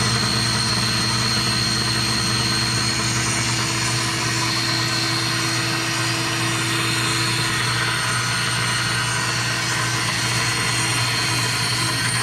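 Boyar-Schultz No.1 profile grinder running at speed: a steady motor hum with a high, even whine. A lower tone in the whine fades away about two-thirds of the way through.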